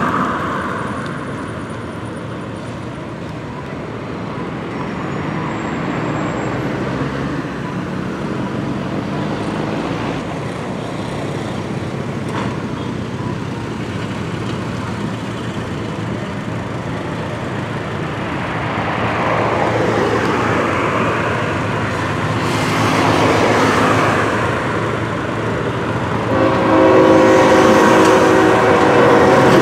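Road traffic passing, cars and trucks going by. About 26 seconds in, a diesel freight locomotive sounds its air horn, a steady chord of several notes held through the end and louder than the traffic.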